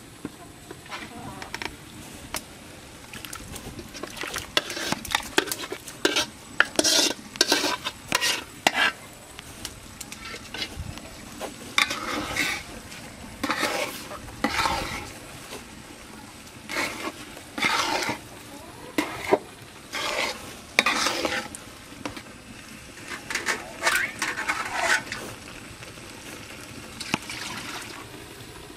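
A long-handled metal spatula stirring and scraping wet rice-and-lentil khichuri against a large metal pot, in irregular strokes every second or so, over a steady sizzling hiss from the cooking.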